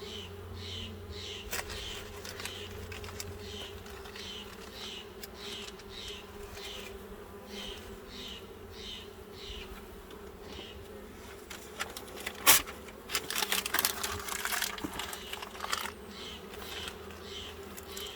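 Bee smoker bellows pumped in regular puffs, about two a second, while the smoker is being fired up hot so it stays lit, over the steady hum of honeybees. A sharp click and a few seconds of clattering come around twelve seconds in, then the puffing starts again.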